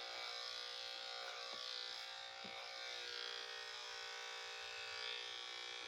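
Electric dog grooming clippers running steadily with an even buzzing hum.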